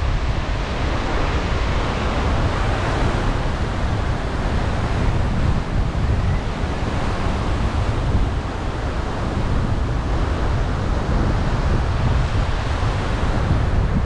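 Surf breaking and washing up on a sandy beach, mixed with wind blowing across the microphone; a steady noise with no separate events.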